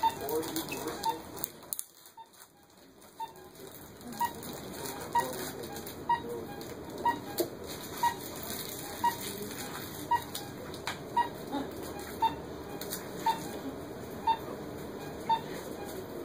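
Short electronic beeps from a bedside medical monitor, repeating about once a second over a low murmur of room noise.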